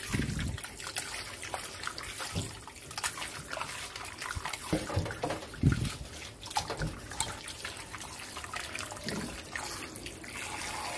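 Kitchen tap running into a glass bowl in a stainless steel sink while gloved hands rub and slosh baby octopus in the water, with irregular splashes throughout: the salt-and-flour scrub being rinsed off.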